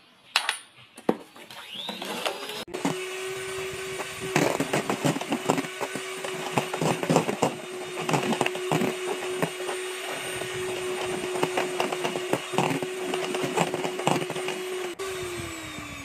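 Electric hand mixer switched on about two seconds in, its beaters whipping egg-white boiled icing in a stainless steel bowl with a steady motor hum and frequent clatter against the bowl. Near the end it is switched off and the hum falls in pitch as the motor winds down.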